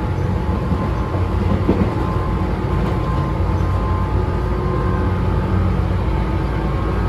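Running sound heard inside a Tobu 9000 series EMU motor car: a steady low rumble of wheels and bogies under a set of steady chopper-control tones, the whine likened to a JNR 201 series.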